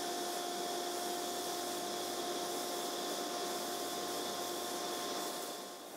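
Steady machinery and ventilation noise of a denim finishing workshop: an even rushing hiss with a few constant humming tones.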